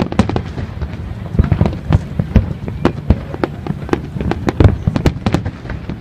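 Fireworks display: a dense run of overlapping bangs and crackling pops, several a second, over a low rumble. The loudest bang comes about four and a half seconds in.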